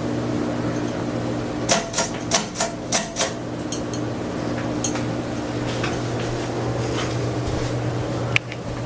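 Craftmade Max Air 29-inch ceiling fan running with a steady motor hum and rush of air. About a second and a half in comes a quick run of six sharp clicks, then fainter ticks, and one more click near the end.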